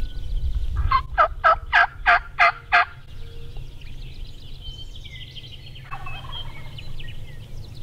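A Merriam's wild turkey gobbler gobbling once, a rapid rattle of about seven notes over about two seconds, starting about a second in. Small birds chirp faintly afterwards.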